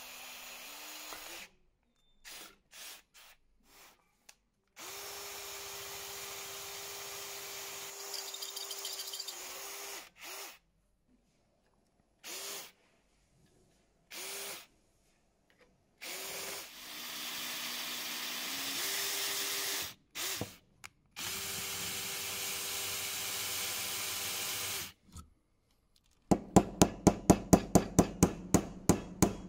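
Cordless drill boring through a wrought iron screwdriver's tang clamped in a bench vise, in several separate runs with short trigger blips between; the motor's steady whine steps up in pitch as it comes up to speed. Near the end a hammer taps rapidly, about four or five strikes a second, peening a brass rivet pin through the wooden handle.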